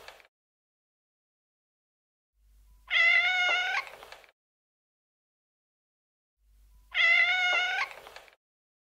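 Long-haired white cat meowing: two drawn-out meows about four seconds apart, each a little over a second long, after the end of a previous one at the very start.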